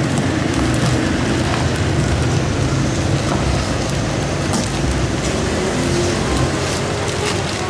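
Steady loud rushing noise with a low rumble, with a few light crinkles of a water-filled plastic bag being handled.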